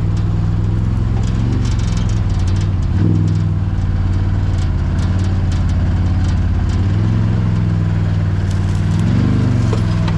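Can-Am Maverick side-by-side's engine running steadily at low speed. Its note shifts about three seconds in and swells up and back down near the end, with scattered small clicks and rattles over it.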